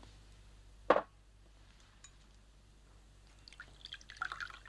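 A single sharp knock on the table about a second in. Near the end, liquid is poured from a bottle into a glass, a trickling patter that builds up.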